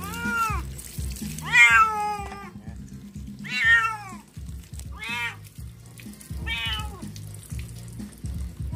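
Ginger domestic cat meowing five times while being bathed, each call arching up and falling in pitch, the second and third the loudest and longest.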